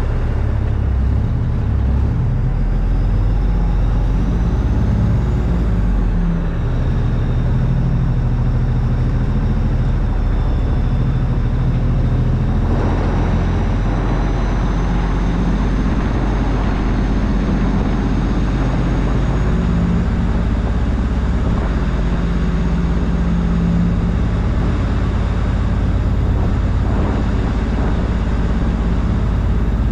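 Heavy truck's diesel engine running steadily under way, its note shifting a couple of times as it pulls through the gears.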